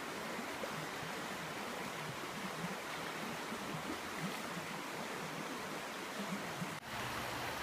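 Small rocky creek running steadily over a shallow riffle, an even rushing of water that breaks off for an instant near the end.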